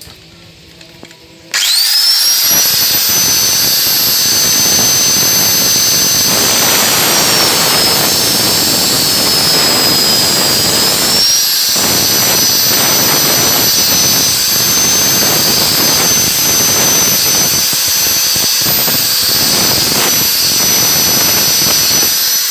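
Electric angle grinder starting up about a second and a half in with a rising high whine, then cutting through a steel exhaust stud set in a motorcycle cylinder head, with harsh grinding noise. The whine sags in pitch for a few seconds in the middle as the disc bites into the steel, then recovers.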